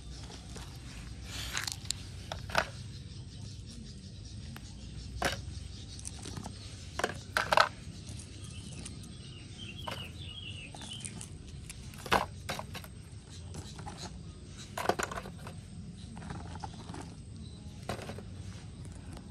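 Ears of corn being dropped and set by hand into the cargo bed of a miniature RC truck: short knocks and scrapes at irregular intervals, about a dozen in all, the loudest around a third and two-thirds of the way through.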